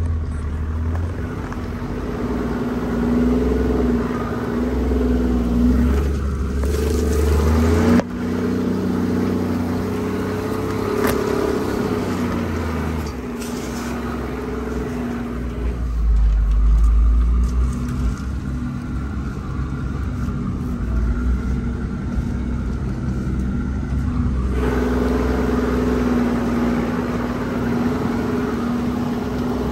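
Toyota Land Cruiser driving off-road, heard from inside the cabin: engine and drivetrain running with a low rumble that swells and eases.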